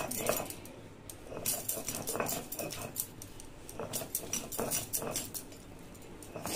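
Stone roller (nora) rocked and pressed over steamed cauliflower on a flat grinding stone (shil-pata), making irregular knocks and scrapes of stone on stone.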